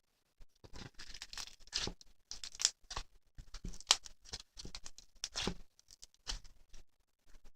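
Irregular rustling and crinkling handling noises close to the microphone, in short uneven bursts with a few sharper clicks, the sharpest about four seconds in.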